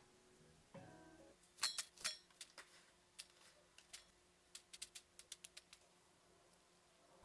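Light, sharp clicks and taps of salad being put together in a stainless steel bowl: two louder taps about a second and a half in, then a quick run of about a dozen lighter ones.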